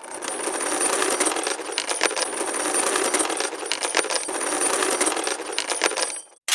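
Metal chains rattling and clinking, a dense jangle of many small metallic clicks that cuts off suddenly near the end.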